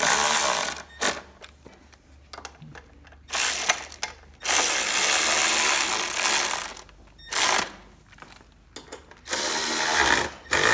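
Cordless electric ratchet with a 3/8-inch socket running in short spurts, driving bolts back in to refasten an engine's cover shroud. Several separate runs, the longest about two seconds, in the middle.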